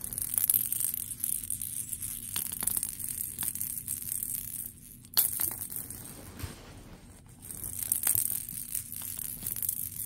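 Plastic cage-ball rattle toy clicking and rattling as an African grey parrot handles it with its beak, in three irregular bouts.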